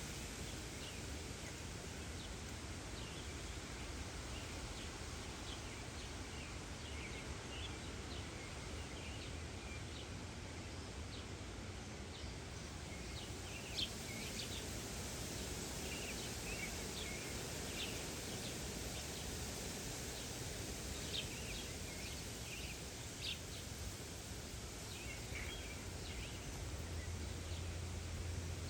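Small songbirds chirping in short, scattered calls, a few of them sharper and louder, over a steady outdoor background hiss.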